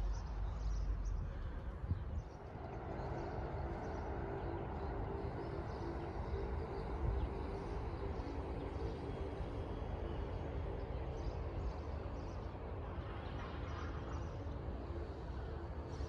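Wind rumbling on the microphone outdoors, and from about two and a half seconds in a steady distant engine hum that holds without change.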